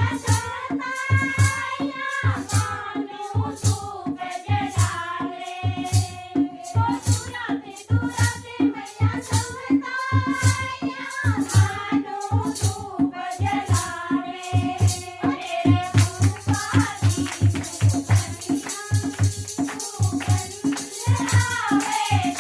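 Himachali devotional bhajan: a voice singing a melody over a fast, steady drum beat with jingling percussion.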